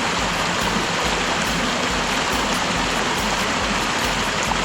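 Stream water running close by at a stream crossing: a steady, even wash of water noise with no change in level.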